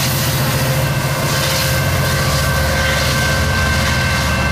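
Metrolink commuter train's diesel locomotive running steadily as the train pulls away along the track, with a deep, even engine note.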